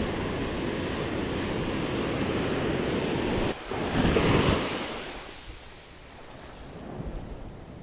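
Ocean surf: waves breaking and washing through the shallows, loud for the first few seconds. A wave surges again about four seconds in, then the wash grows quieter.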